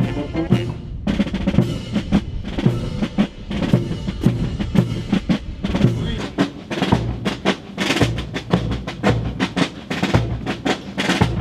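Band music driven by drums: rapid snare drum rolls and strokes over bass drum beats, with sustained low instrument tones beneath.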